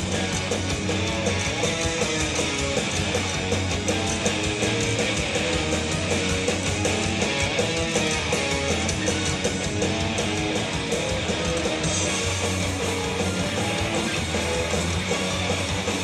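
Heavy metal band playing live: distorted electric guitars, bass guitar and drums with cymbals, in a loud, steady, driving passage.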